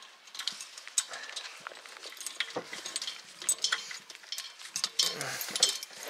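Irregular light metallic clicks and clinks from hands working the gas bottle's valve and fittings in a motorhome's gas locker, as the gas supply is being turned on.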